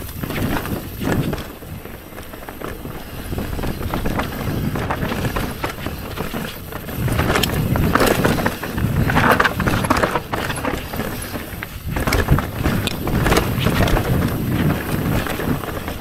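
Mountain bike descending dirt singletrack: a rough rush of tyres on dirt and loose stones, with frequent clatter and knocks from the bike as it rides over the bumps, rising and falling with the terrain.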